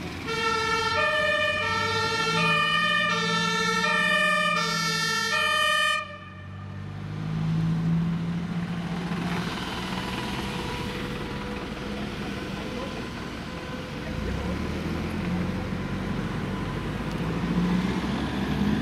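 Two-tone German fire-brigade siren (Martinshorn) alternating between a high and a low pitch, cut off suddenly about six seconds in. After that, the engines of fire-brigade vans and trucks driving past amid city traffic.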